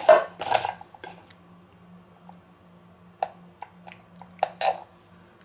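Handling of a plastic butter dish on a wooden board, then a few light clicks and taps as a table knife touches the dish and the block of butter, over a faint steady low hum.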